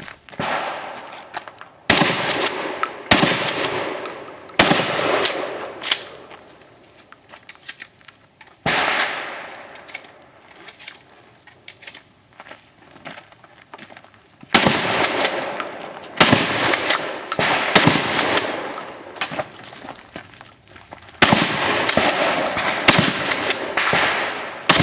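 Shotgun shots, about eight, fired at irregular intervals from about a second to several seconds apart. Each one rings out with a long echo.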